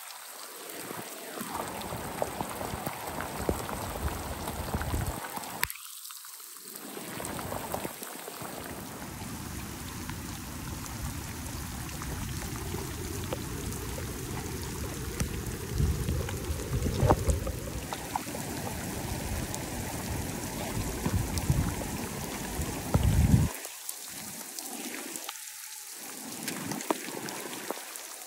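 Heavy rain falling, a continuous hiss, with a few louder low rumbles now and then.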